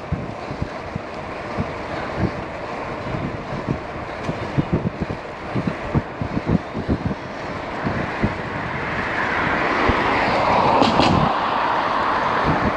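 Wind buffeting the microphone of a moving bicycle in road traffic, with uneven low gusts. A motor vehicle passes close by, its noise building from about two-thirds of the way in and loudest near the end.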